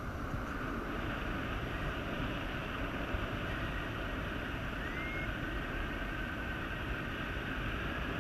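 Steady rushing wind noise, with low buffeting on the microphone and a constant hiss above it.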